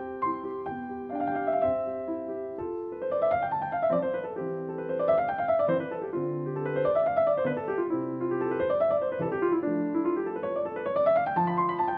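Background piano music: notes running up and down in repeated waves, each rise and fall lasting under two seconds.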